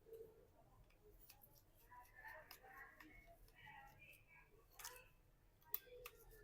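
Near silence with faint small clicks and ticks as tiny screws are taken out of a smartphone's frame, with one sharper click near the end.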